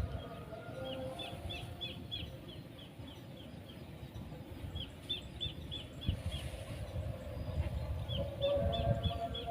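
A bird calling in three quick runs of short, high, falling chirps, about four a second, over a low rumble of wind or outdoor noise.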